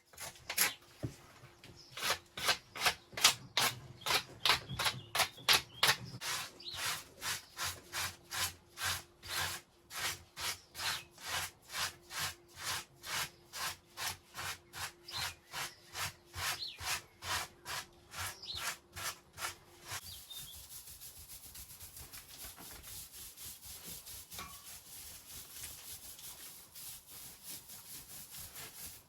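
Rhythmic rubbing or scraping strokes of a hand tool, about two to three a second, for about twenty seconds, then a quieter, faster scratching.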